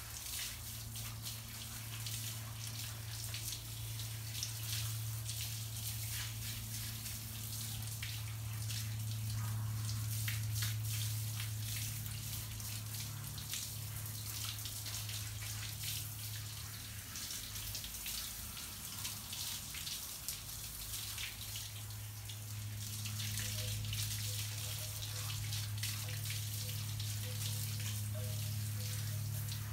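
Water from a garden hose spraying and splashing on a wet dog's coat and the patio pavers, over a steady low hum.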